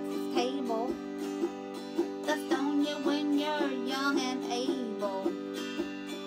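Autoharp strummed, its chords ringing steadily, with a woman singing over it.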